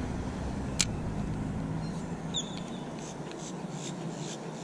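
Daiwa Ballistic 2500 spinning reel: its bail snaps shut with one sharp click about a second in, then the reel is wound in a jig retrieve with faint ticking. A short high chirp comes midway.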